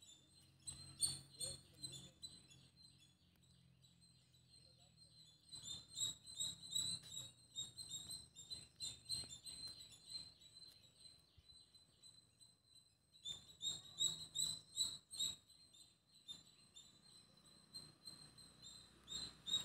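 A small bird chirping rapidly, in runs of quick high chirps lasting a few seconds each with short pauses between.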